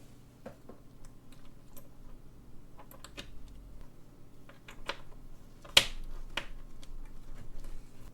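Scattered light clicks and taps of small metal tools on clock-movement parts, with a sharper click a little before six seconds in and another about half a second later.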